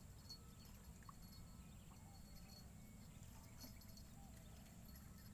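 Near silence: faint riverside ambience with a steady low rumble and a few faint, short chirps.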